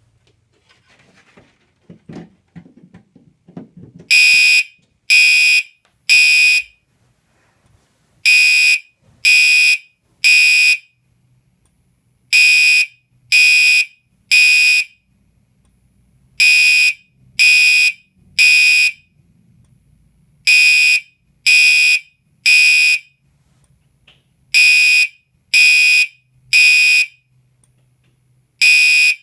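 A Gentex alarm sounding a shrill electronic beep in the temporal-3 evacuation pattern: three half-second beeps, then a short pause, repeating. It starts about four seconds in, after some faint rustling.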